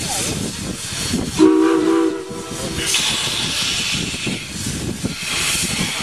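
A small steam locomotive gives one short toot on its whistle, about half a second long, then steam hisses steadily, with low rumbling underneath.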